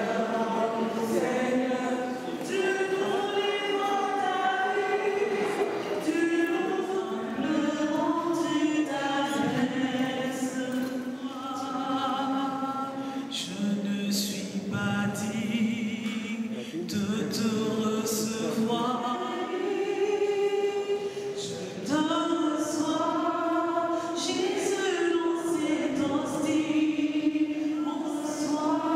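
A choir singing a hymn in slow phrases of long held notes, with short breaths between phrases.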